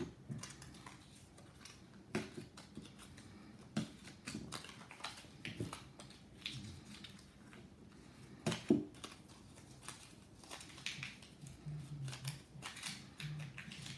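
Paper squares rustling and crinkling as they are handled and pressed onto a stack, with scattered light taps and clicks on the table, the sharpest about nine seconds in.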